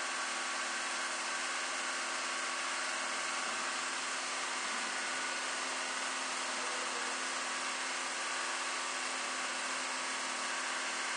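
Small electric appliances running together: a steady mechanical drone with a hiss and several constant hum tones, unchanging throughout.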